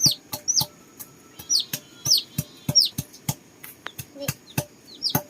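Repeated chopping knocks on a wooden board, about three or four a second and unevenly spaced, typical of cutting up meat with a cleaver. Short, high, falling bird chirps come several times between the knocks.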